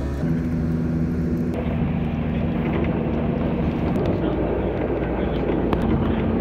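Steady engine drone with a constant low hum, changing abruptly in character about a second and a half in.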